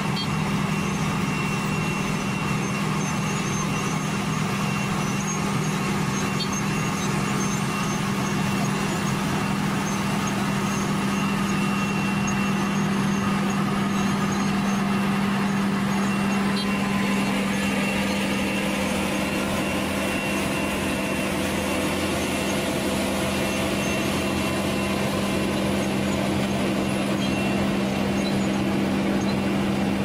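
Heavy diesel engines of a truck and a Wirtgen cold milling machine running steadily, a constant low drone heard from inside the truck's cab.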